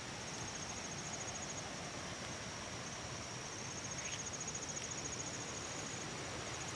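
Steady chorus of chirping insects: a high, evenly pulsing trill over a soft hiss.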